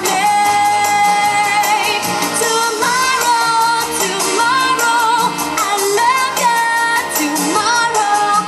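Stage show song: a singer holding and bending long notes over a backing track with a steady beat.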